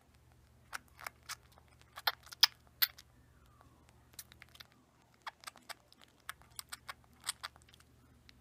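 Baby squirrel suckling from a plastic feeding syringe: irregular quick clicks and smacks, about twenty in all, loudest a little over two seconds in. A faint steady low hum runs underneath.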